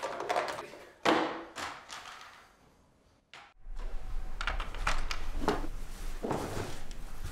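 Plastic board-game pieces tipped from a cardboard box clatter onto a tabletop about a second in, rattling for a second or two. After a short pause, a few light taps and knocks on the table over a low room hum.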